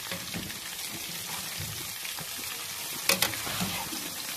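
Battered fish pieces sizzling and crackling in hot oil in a kadhai, the fish done and being lifted out with tongs. About three seconds in, two sharp clicks close together, the tongs knocking against the pan.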